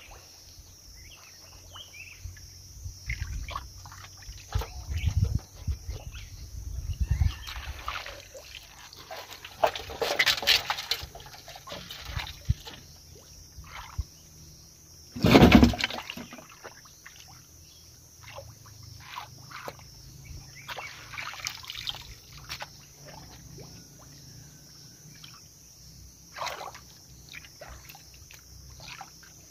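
Hand-held mesh scoop net dragged and lifted through a shallow muddy puddle: irregular sloshing and splashing of water, with one sudden, much louder splash about halfway through.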